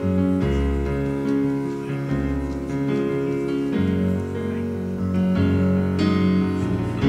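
A worship band playing an instrumental passage between sung lines: sustained keyboard chords over deep bass notes, the harmony changing every couple of seconds.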